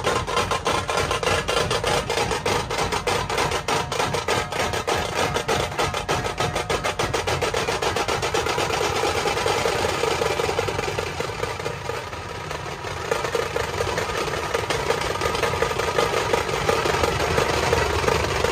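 Dhol tasha ensemble drumming: the tashas play a fast, dense roll of strokes over the dhols. The playing dips briefly in loudness about two-thirds of the way through, then picks up again.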